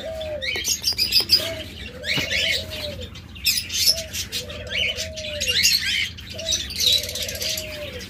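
A captive dove cooing over and over, each coo a short note followed by a longer drawn-out one, with high chirping from other cage birds in the aviary.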